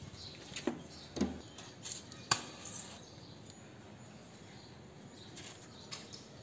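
A few short, light clicks and knocks, the sharpest about two seconds in and one more near the end, over a faint steady outdoor background.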